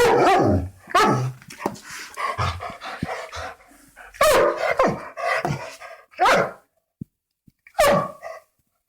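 Large dog barking in a series of loud barks, each dropping in pitch, with quieter barks between them and a brief lull near the end.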